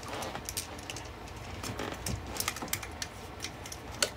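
Light, irregular clicks and taps of metal calipers being handled and set against a drive shaft's coupling flange and U-joint yoke.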